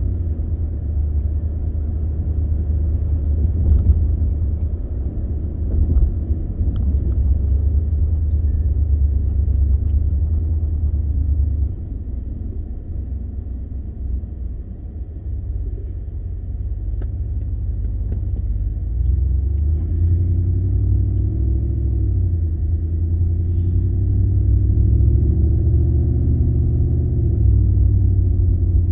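In-cab engine and road rumble of a 2015 Ford F-150's 5.0 V8 being driven, running smoothly with no hiccups on its newly replaced stock throttle body. The rumble eases about twelve seconds in, then the engine note builds again over the last third.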